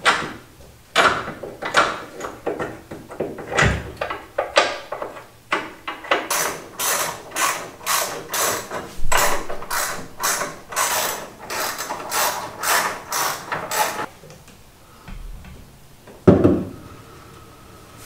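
Hand ratchet wrench clicking in quick, even strokes, about three a second, for several seconds midway, tightening the subframe's mounting bolts. Before it come a few scattered metal clinks, and a single loud clunk comes near the end.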